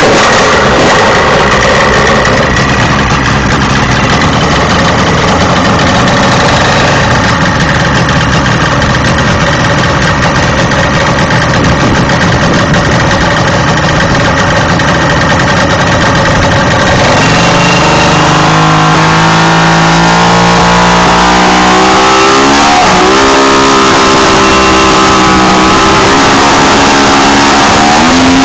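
100-horsepower outboard motor running loud. For the first half it is a dense, rushing roar. From about halfway on, its pitch climbs, dips sharply, and rises again with the throttle.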